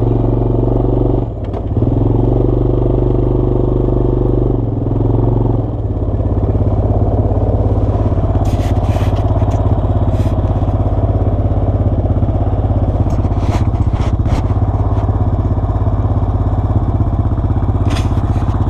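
Honda ATV engine running at a steady pitch while riding, dipping briefly about a second in, then dropping to a steady idle about six seconds in. A few sharp taps and clicks come in bursts during the idle.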